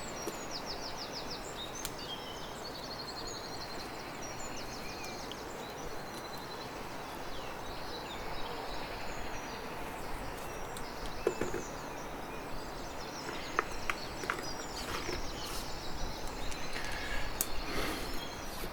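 Steady background hiss of room ambience, with high bird chirps and trills in the first few seconds and scattered light clicks and taps in the second half.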